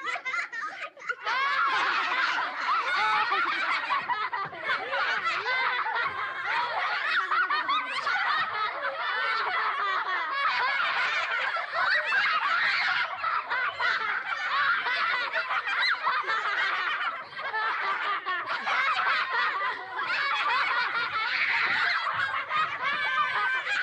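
A group of children laughing and giggling together, many high voices overlapping in a continuous stream that grows fuller about a second in.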